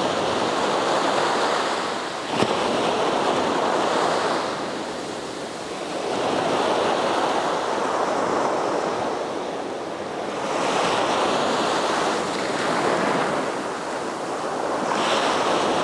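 Small ocean waves breaking and washing up a sand beach, the surf swelling and ebbing in surges every four to five seconds.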